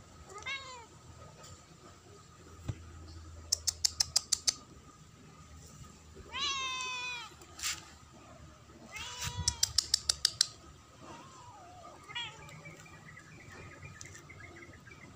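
Kittens meowing: several short, high mews falling in pitch, the longest about six seconds in, and a wavering one near the end. Twice, a quick run of about eight sharp clicks lasting about a second is the loudest sound.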